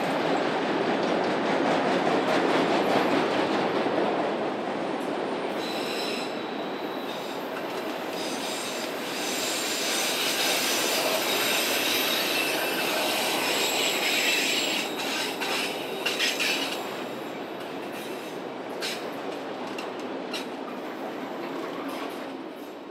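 Freight train rolling past: a steady rumble of wheels on rail, with high, steady wheel squeal for several seconds in the middle, then clicks over rail joints as it fades near the end.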